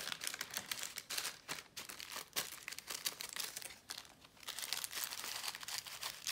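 Crinkly paper rustling as the pages, tissue, tags and envelope of a handmade junk journal are handled and turned: a dry, crisp rustle full of small crackles, easing off briefly about four seconds in.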